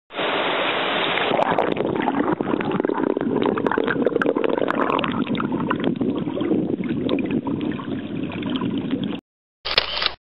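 Rushing river water, a steady splashing rush that cuts off abruptly about nine seconds in, followed by a short burst of the same kind of noise near the end.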